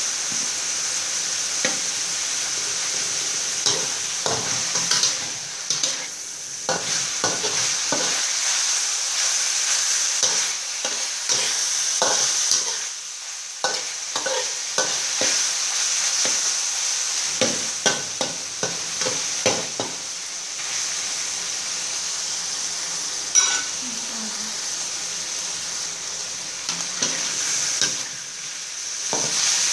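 Chopped pork sizzling steadily in a hot wok while a spatula stirs it, scraping and clacking against the pan in irregular runs of quick strokes. About three-quarters of the way in there is one sharper knock.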